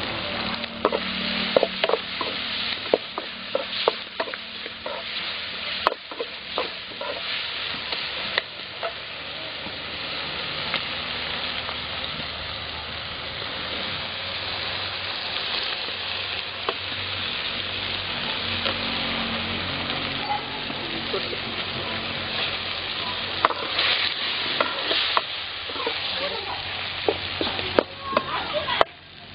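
Onions, tomatoes and green chillies sizzling in oil in an aluminium kadai, with a steel ladle scraping and clacking against the pan as the mix is stirred. The clacks come thick in the first several seconds and again near the end, with steady sizzling between.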